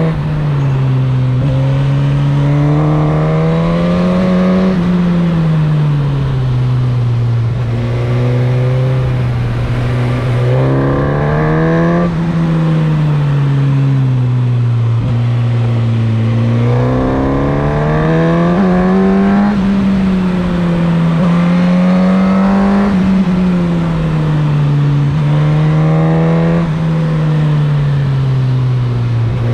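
Suzuki GSX-S1000's inline-four engine heard from the rider's seat, its note repeatedly rising under throttle and falling back as the bike rides through a series of bends.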